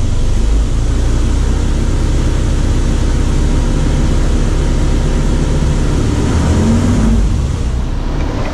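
Isuzu Crosswind's warmed-up engine running steadily and loud, with an even low rumble, as it is run for testing after the differential carrier bearings were replaced.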